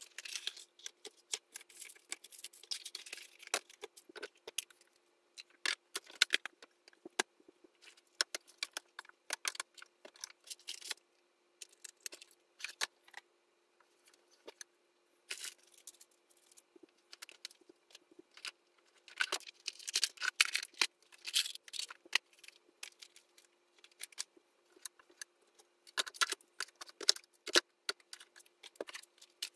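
Small objects being handled and put away on shelves: scattered clicks, clatters and rustling, busiest in a few short stretches, over a faint steady hum.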